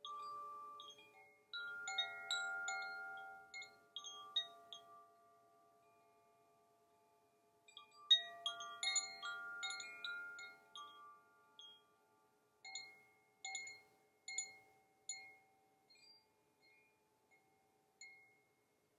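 Chimes ringing: clusters of bright struck metal tones that ring on and fade, thickest at the start and again about eight seconds in, then single strikes about a second apart growing fainter toward the end, over a faint steady hum.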